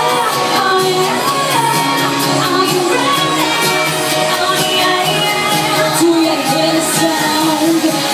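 Loud pop music with a woman singing over it, amplified through a party sound system.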